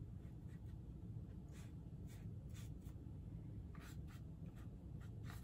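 Paintbrush loaded with acrylic paint stroking across paper: a series of faint, short scratchy swishes, over a low steady room hum.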